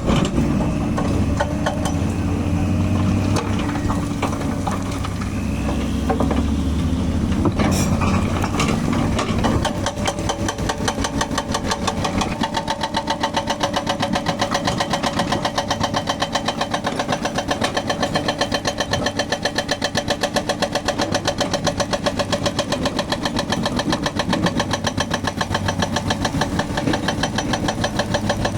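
Volvo excavator's diesel engine running steadily, with a few scattered knocks. About ten seconds in, its hydraulic breaker hammer starts a rapid, even hammering that keeps going.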